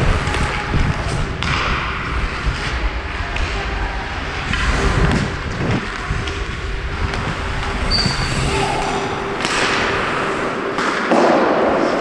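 Ice hockey skates striding and scraping on rink ice, with irregular thuds from stick, puck and body movement, picked up by a helmet-mounted action camera with constant movement rumble. A louder scrape about eleven seconds in.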